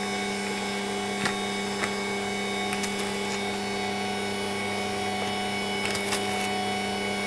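Electric stand mixer running steadily, its motor humming evenly as it beats batter in the bowl. A few light clicks and rustles come from a paper sachet of baking soda being handled.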